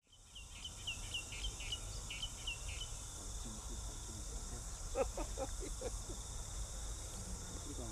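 A bird chirping in a quick repeated run during the first few seconds, over a steady high insect drone and a low rumble. A short burst of lower-pitched calls follows about five seconds in.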